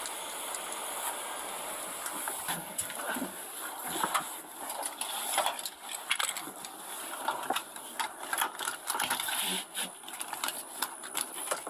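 Body-worn camera audio: a steady hiss, then from about two seconds in, irregular clicks, knocks and rustling as the camera and gear are handled, with faint muffled voices.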